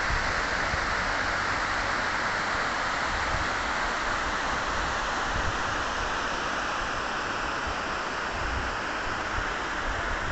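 Rushing mountain river: a steady, even roar of fast water over rocks, with wind buffeting the microphone in low rumbles.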